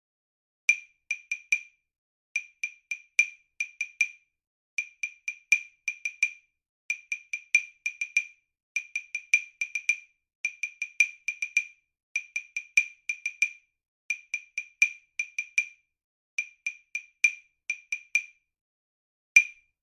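Dry, high wood-block clicks playing a drill's percussion accompaniment in quick groups, roughly one group per bar, and a single click near the end. The gaps between groups vary, as the tempo is pushed and pulled for a ritardando and accelerando exercise.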